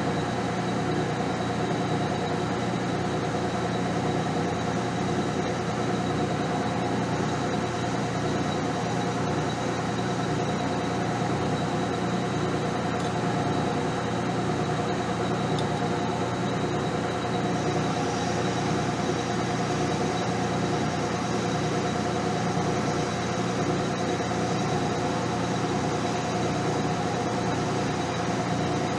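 Metal lathe running steadily, its spindle drive giving a constant whine and hum as a tool bit turns a small metal part held in a 5C collet. The higher hiss of the cut picks up a little about two-thirds of the way through.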